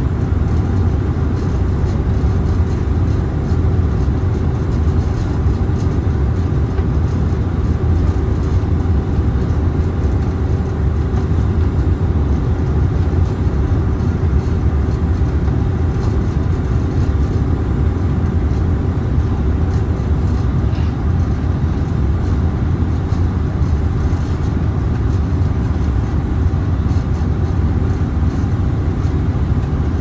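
Steady cabin noise inside a CRJ-900 regional jet on final approach: a loud, even low rumble of airflow and engines, with a faint steady hum above it.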